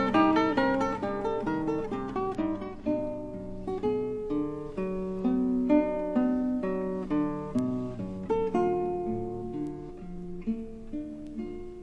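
Background music on acoustic guitar: a melody of plucked notes, quick and closely spaced for the first couple of seconds, then slower and more spread out.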